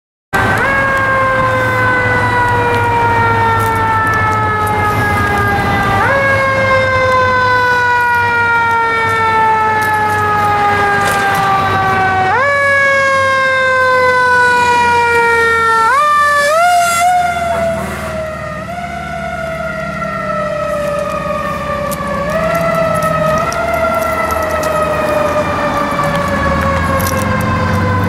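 Fire engine siren that winds up quickly and then slides slowly down in pitch, rewound about every six seconds. Around the middle there is a brief flurry of quick up-and-down yelps, after which it runs lower with smaller re-windings.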